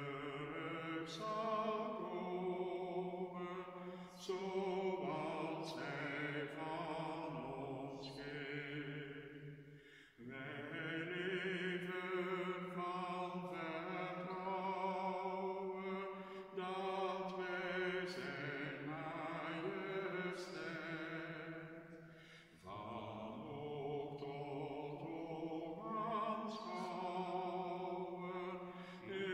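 Slow sacred singing: a voice holds long notes with vibrato in long phrases, breaking off briefly about ten seconds in and again a little past twenty seconds.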